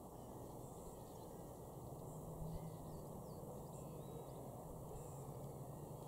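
Faint open-air ambience: a steady low rumble with a few faint, distant bird calls and chirps scattered through it.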